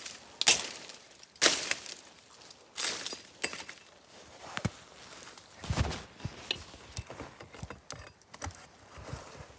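Chopping into a small tree with a blade: sharp chops about a second apart, giving way to lighter knocks and clicks in the last few seconds.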